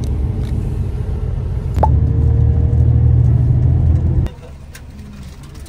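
Steady low rumble of a bus's engine and road noise inside the passenger cabin. It gets louder about two seconds in and drops off abruptly near the end.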